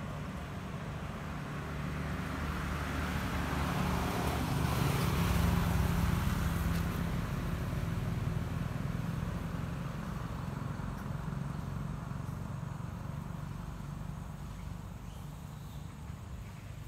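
A motor vehicle passing by, its engine and road noise building to a peak about five seconds in and then slowly fading.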